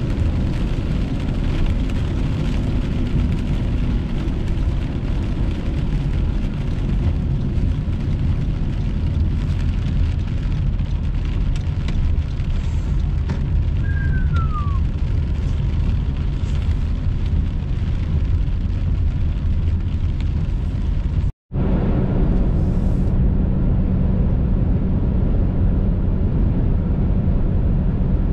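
Steady low road and engine rumble inside a moving car on a wet highway, with a short falling squeak about halfway through. The sound drops out for a split second about three-quarters of the way in, and after that a steady low hum runs under the rumble.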